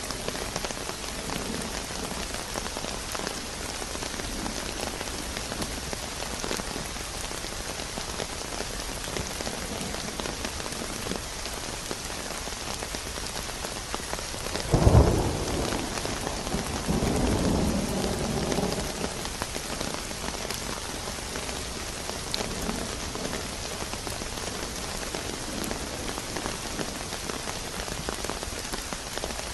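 Steady heavy rain falling on a surface, with a sharp thunderclap about halfway through that rolls on as a low rumble for a few seconds before the rain alone continues.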